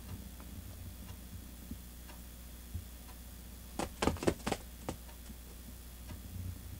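A quick run of about five soft taps, a cat's paw patting at a laser dot on a foam floor mat, with a few fainter ticks scattered around it.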